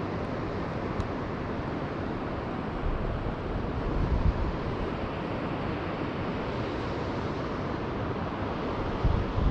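Wind on the camera's microphone: a steady rushing noise with stronger gusts about four seconds in and near the end.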